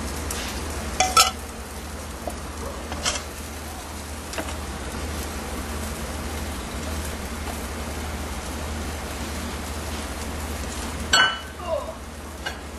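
A few light, briefly ringing clinks of a metal pan and spatula against a ceramic serving plate as the simmering liquid is poured over the fish, with a sharper clink near the end. A steady low hum lies underneath.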